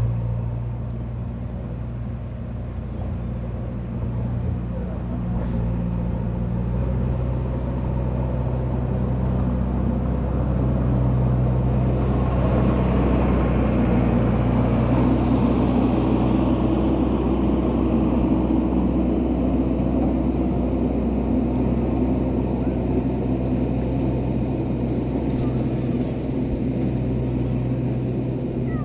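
A motor vehicle's engine running steadily with a low hum, swelling louder for several seconds in the middle and then easing back.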